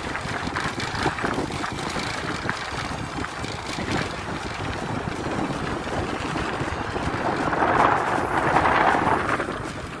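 Wind buffeting the microphone of a moving electric scooter, over a rough rumble of small tyres on a patched concrete path. A louder rush swells for about two seconds near the end.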